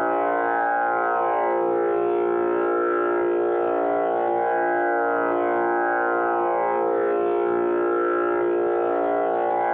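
Tanpura drone tuned to A#: a steady, unbroken drone whose overtones swell and fade in slow cycles as the strings sound in turn.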